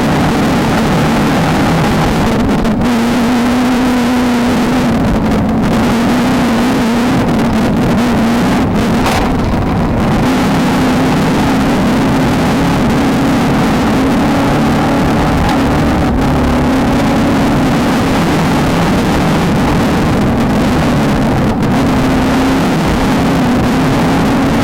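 Off-road race car's engine running hard under a dense rush of noise, its pitch holding fairly steady with small rises and falls as the throttle changes.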